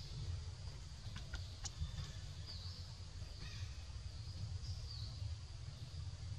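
Quiet forest ambience: a low steady rumble, a few soft clicks between one and two seconds in, and faint short high chirps three times.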